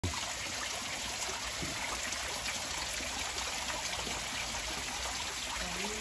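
A small waterfall trickling and splashing down mossy rock into a shallow pool: a steady, even rush of water.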